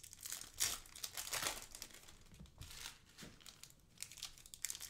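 Plastic wrapper of a Panini football trading-card pack being torn open and crinkled by hand, in a run of crinkly bursts that are densest in the first couple of seconds.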